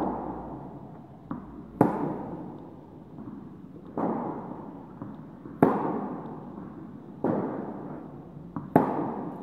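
Tennis rally in an indoor hall: rackets strike the ball about every one and a half to two seconds, and each hit rings on in the hall's echo. The near player's hits are the loudest, and a couple of softer ball bounces come just before two of them.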